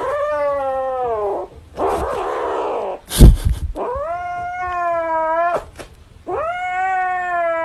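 Kitten yowling in three long, drawn-out cries, the first falling in pitch and the later two held steady. Between the first two cries there is a rough, noisy stretch, and a sharp thump about three seconds in is the loudest sound.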